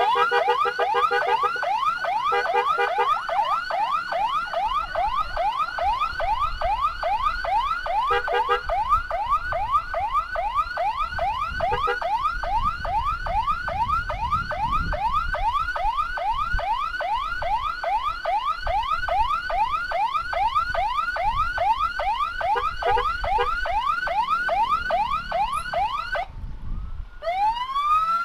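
Electronic emergency siren of an ambulance escort sounding a fast yelp, about three rising sweeps a second, to clear traffic. A lower pulsing tone joins now and then. Near the end the yelp cuts off and a slower rising wail begins.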